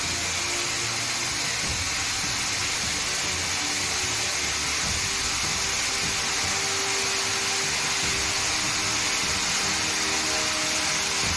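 Steady hiss of compressed air from the pneumatic cylinders of a butterfly tilting table as they lower a timber wall frame.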